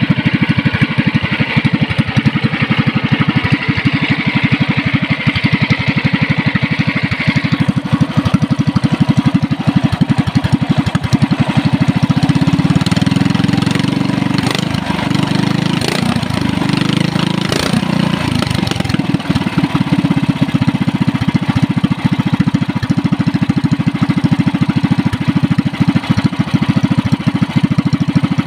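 Yamamoto 420 single-cylinder petrol longtail engine, freshly rebored with a 0.50 oversize piston, running steadily at a fast, even beat. Its note thickens for several seconds midway, with two sharp clicks in that stretch.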